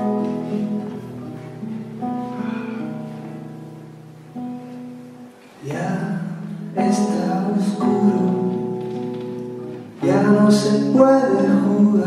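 Background music from a Spanish-language pop ballad, a guitar-led passage with sustained chords, growing louder about halfway through and again near the end.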